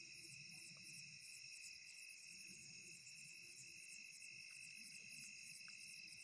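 Faint night chorus of crickets: a steady high-pitched trill with a quick, even pulsing above it, about five pulses a second.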